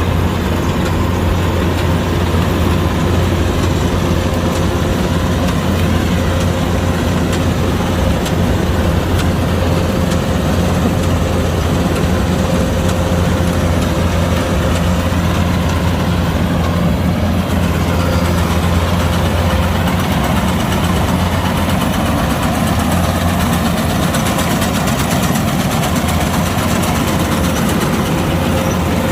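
Kubota DC-105X combine harvester running steadily: a loud, even diesel engine hum with a constant whine from the machinery above it.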